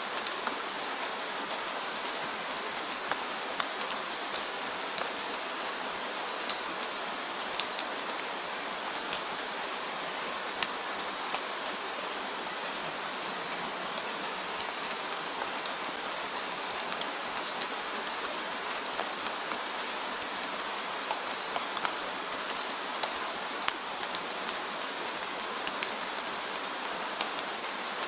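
Steady rain falling, an even hiss with many sharp drop impacts scattered through it.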